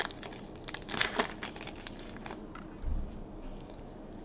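Foil wrapper of a hockey card pack crinkling and tearing as hands pull it open. The crackling dies away about two seconds in, and a soft low thump follows near the three-second mark.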